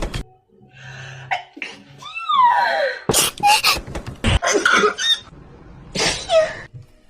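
A series of human sneezes: a drawn-out wind-up breath whose pitch rises and then falls, followed by several short, sharp sneeze bursts.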